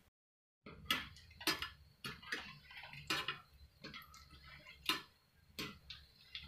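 Metal wire skimmer clinking against the kadhai as deep-frying kofta balls are turned, about ten light, irregular taps over a faint sizzle of hot oil.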